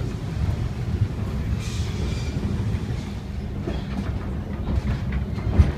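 Open-sided vintage streetcar running along its track: a steady low rumble of wheels on rail with clicks. A brief higher-pitched noise comes about two seconds in, and a single sharp knock comes near the end.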